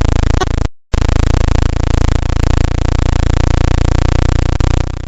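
A space-sound recording, a sonification of spacecraft data: a loud, dense drone of many steady tones with a fast flutter. It cuts out for a moment a little under a second in, then carries on.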